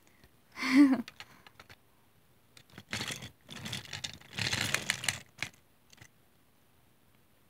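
Toy train engines and plastic playset pieces handled by hand: clicks, light clatter and scraping as the engines are pushed and coupled at a toy water tower, busiest in the middle. A short pitched sound comes about a second in.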